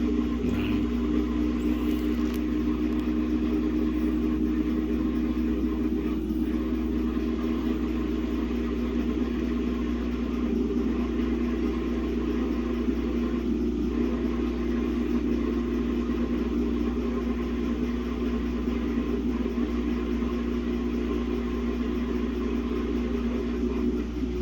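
Samsung WA50R5200AW top-load washing machine spinning a single pair of pants, a badly unbalanced load: a steady motor hum over a low rumble that drops off suddenly near the end.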